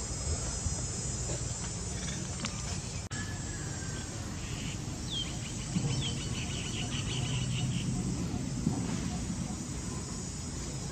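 Steady outdoor background noise with a low rumble, which cuts out for an instant about three seconds in. About five seconds in come two short falling high chirps and a rapid high trill of about a second, from an insect or a small bird.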